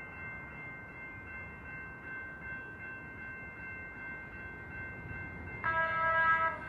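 A train's multi-note air horn blasts about five and a half seconds in, the warning for the grade crossing, over a steady high ringing tone and low rail rumble.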